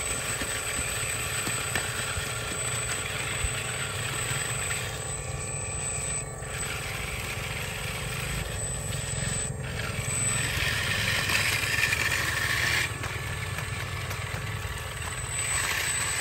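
Radio-controlled scale Hitachi Zaxis excavator driving on its tracks over concrete: steady whirring of its small electric drive motors and gearboxes with a thin high whine and track clatter, turning louder and brighter about ten seconds in and again near the end as it turns.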